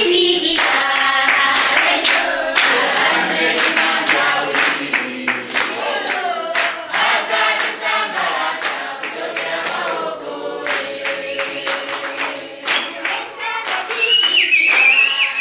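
A group of women singing together in a call-and-response style song, with hands clapping in time. Near the end a high wavering cry rises above the singing.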